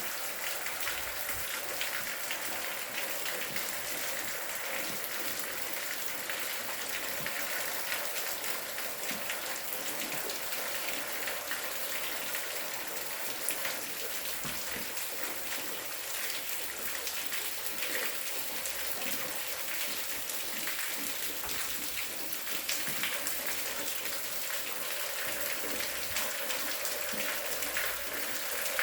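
Steady rain falling, with many small drop impacts pattering over a constant hiss.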